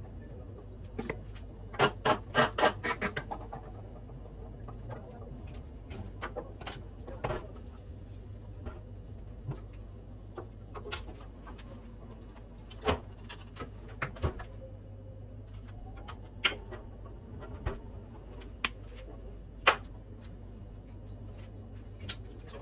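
Scattered clicks and knocks from hands and tools working on a washing machine, over a steady low hum. About two seconds in comes a quick run of several sharp knocks, followed by single knocks every second or two.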